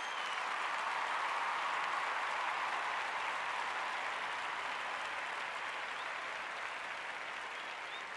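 Crowd applause and cheering, most likely an added sound effect. It swells in over about the first second, holds steady, then eases off slightly near the end.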